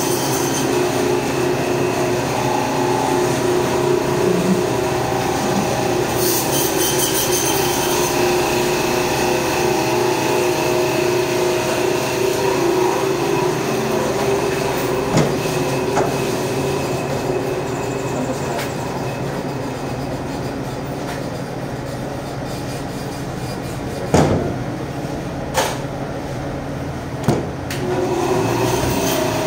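Steady, loud machine drone filling the butcher shop, with a few sharp knocks on the work table in the last few seconds.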